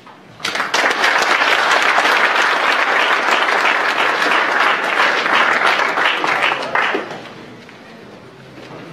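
Audience applauding: dense clapping that starts about half a second in, holds steady, and dies away about seven seconds in.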